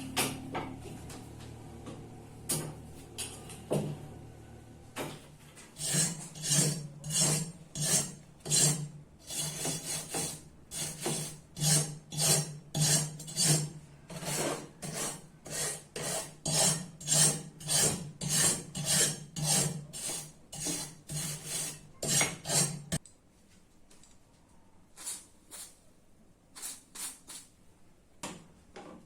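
Hand scraping strokes on rusty metal, a steady run of about two strokes a second, breaking off about 23 seconds in to a few scattered, quieter strokes. A few separate knocks come before the run.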